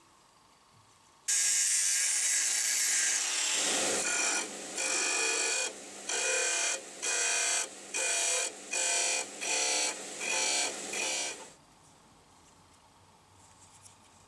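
Bench disc sander grinding a wooden block with an inlaid metal strip. A continuous stretch of sanding starts suddenly about a second in, then the piece is pressed to the disc in about ten short, evenly spaced strokes, and the sound cuts off sharply near the end.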